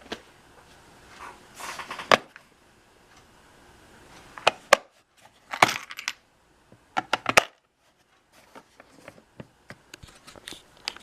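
Plastic toolbox and the hand tools in it being handled: a series of sharp clicks and knocks, a few seconds apart and some in quick pairs, with light scuffing between them.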